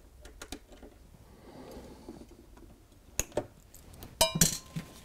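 Small metal clicks and taps of a screwdriver working the screws of a barrier terminal block, with two sharp clicks a little after three seconds and a louder short clatter with a brief metallic ring just after four seconds.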